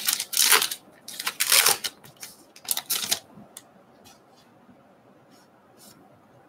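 A stack of trading cards handled, the cards sliding and flicking against one another as they are sorted through: several quick rasping strokes in the first three seconds, then a few faint ticks.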